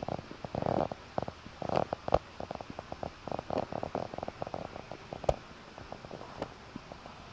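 Irregular crackling and popping of wind buffeting a phone microphone held out on an open balcony, with a couple of sharper clicks.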